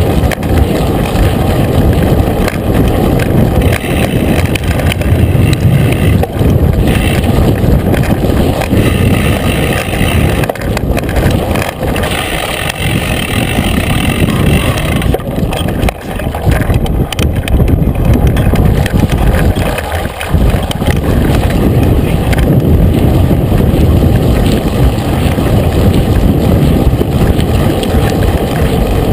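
Mountain bike riding fast over a dirt trail, heard from a camera on its handlebars: a loud, steady rumble of knobby tyres on dirt and gravel, the bike's rattle and wind on the microphone.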